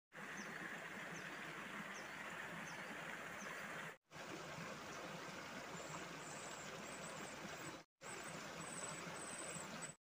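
Outdoor nature ambience: a steady hiss like running water, with faint high bird chirps and trills over it. The sound cuts out briefly twice, about four and eight seconds in.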